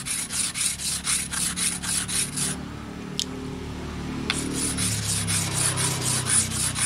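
A steel dowel-machine cutter blade rubbed back and forth by hand on a wet whetstone, about four scraping strokes a second, to sharpen its edge. The strokes stop for about two seconds in the middle, with a light click or two while the blade is wetted in water, then start again.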